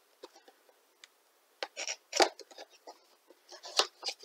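Small cardboard box being opened by hand: its tucked flap pulled loose and the packaging handled, giving scattered short rustles and scrapes. These are loudest about two seconds in and again near the end.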